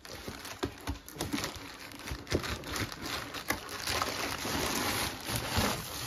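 Packaging rustling and crinkling as a boxed soundbar is handled, with scattered small clicks and knocks. The rustle grows denser and louder about four seconds in.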